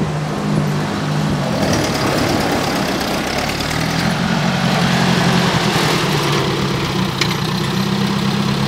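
Ford Jubilee tractor's four-cylinder gasoline engine running steadily. Its pitch drops about a second and a half in and rises again about four seconds in.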